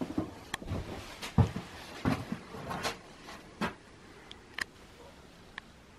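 Footsteps and knocks with clothing rustle as a person in a heavy snowmobile jacket walks in: a run of irregular thumps and clicks, fewer after about four seconds.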